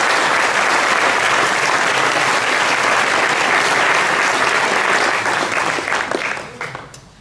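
Audience applauding, steady and dense, then dying away over the last couple of seconds into a few scattered claps.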